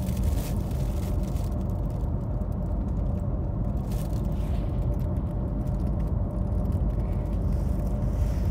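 Steady low rumble of a moving car heard from inside the cabin, with a faint steady hum above it.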